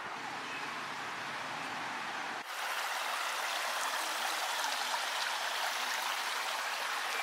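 Rushing water of a creek and small waterfall, a steady even wash of noise; about two and a half seconds in it turns slightly louder and thinner.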